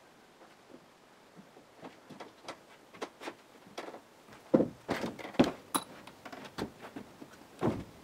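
Footsteps on an aluminium scaffold walk-board and old loose wooden loft floorboards: scattered light clicks at first, then a run of louder knocks and thuds about halfway through as he walks across, with one more thud near the end.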